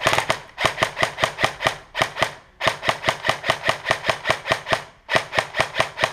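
Airsoft gun firing in rapid strings of sharp shots, about five a second, with brief pauses between strings.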